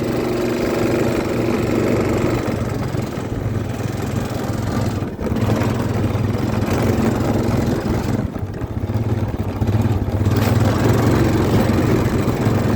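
Four-wheeler (ATV) engine running hard in fifth gear on a run at a dirt jump, its note rising and falling, with brief drops about five and eight seconds in.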